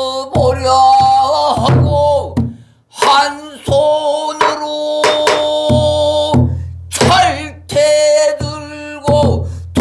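A man singing pansori in long, wavering held notes, accompanying himself on a buk barrel drum: deep thumps on the drumhead and sharp stick knocks between the phrases. There is a short break for breath about three seconds in.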